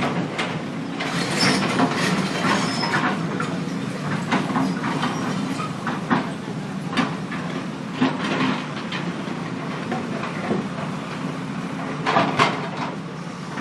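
Heavy diesel construction machinery running steadily, with irregular clattering and scraping of broken-up road surface material.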